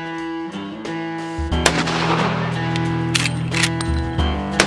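Guitar-led background music with two loud gunshots mixed in, one about a second and a half in and one near the end.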